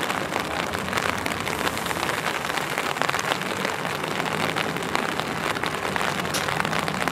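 Rain pattering steadily, a dense even crackle of drops.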